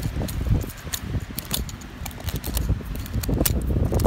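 Screwdriver tip scraping and digging into dry, gritty sandy soil, making irregular scratches and small clicks, over a low rumble.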